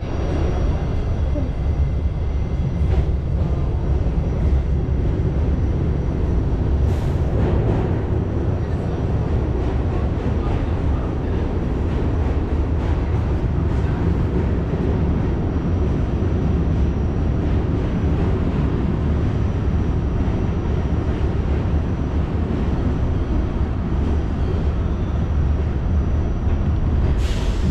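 Inside a New York City subway car: the train's steady low rumble and hum, with a faint high whine over it. A few brief sharp clacks come through, the clearest about 7 seconds in and one near the end.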